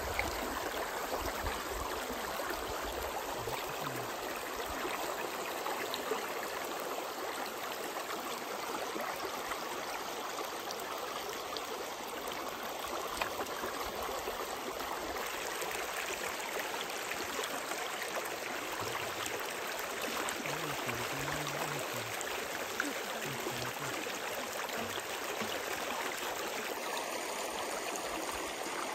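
Shallow stream running over a stony bed: a steady rush of flowing water.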